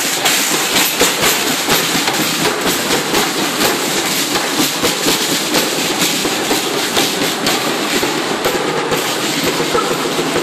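Marching drum corps playing snare drums and bass drums as it marches, a dense, rapid rattle of snare strokes over a steady marching beat.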